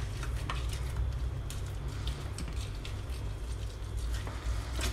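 Lemon half being pressed and twisted on a small plastic hand citrus reamer: scratchy rubbing with small scattered clicks, over a steady low hum.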